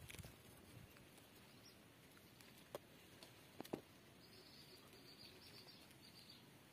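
Near silence: faint outdoor background with two small clicks about a second apart in the middle, and a faint high chirping over the last two seconds or so.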